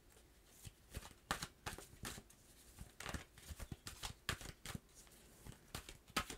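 Deck of tarot cards shuffled by hand: a soft string of irregular card slaps and swishes, several a second.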